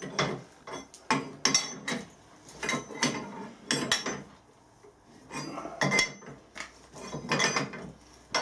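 Steel Whitworth ring spanner clinking against the nuts and threaded rods of a bearing puller as it is fitted and swung round again and again to tighten the nuts. The clinks come in short clusters about once a second, with a pause of about a second near the middle.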